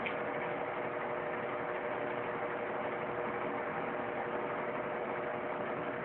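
Tufão pedestal fan running steadily: a constant rush of air with a steady hum from the motor.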